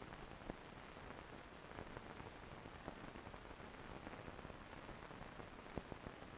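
Faint steady hiss with a few soft clicks and crackles, and no sound from the trains on screen: the noise floor of a silent amateur film transfer.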